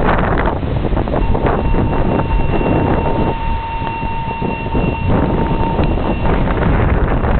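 Class 66 diesel locomotive, with its two-stroke V12 engine, passing with a low rumble, mixed with heavy wind buffeting on the microphone. A steady high tone sounds from about a second in until near six seconds.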